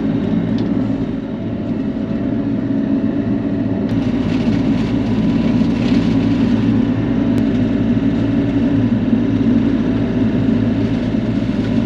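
Bobcat E42 mini excavator's diesel engine running steadily and loudly while working the hydraulic brush cutter attachment.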